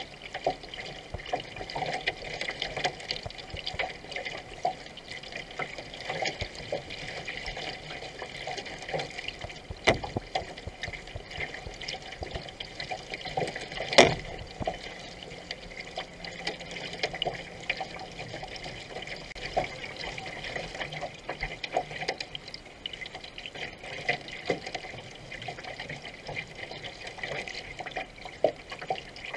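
Water rushing and splashing along a racing canoe's hull as it is paddled at speed, with the irregular splash of paddle strokes. A single sharp knock about halfway through.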